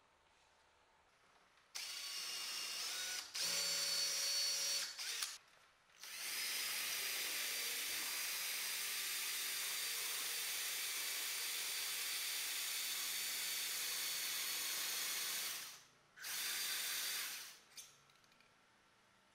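Cordless drill boring dowel holes into a wooden rail through a self-centering doweling jig, its motor whining steadily. It runs in four spells: two short ones in the first few seconds, a long steady run of about ten seconds, and a short final burst near the end.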